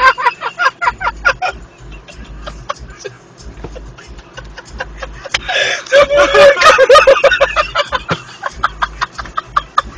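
People laughing hard and breathlessly in rapid cackling bursts, with a louder outburst of laughter about six seconds in.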